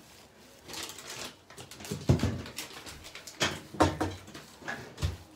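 Irregular knocks, bumps and rustles of household things being handled and put away while tidying up, with about six sharper knocks spread through the stretch.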